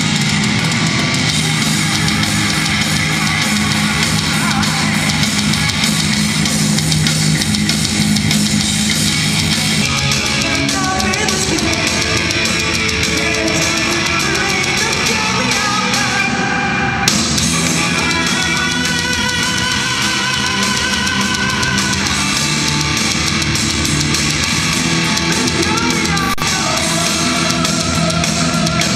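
Heavy metal band playing loud, with electric guitars and a drum kit.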